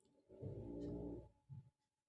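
A person sneezing: a drawn-out voiced cry of about a second, then a short second burst just after it.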